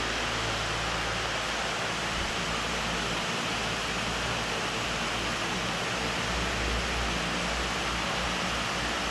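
Electric fans running, a steady even whoosh with a faint low hum.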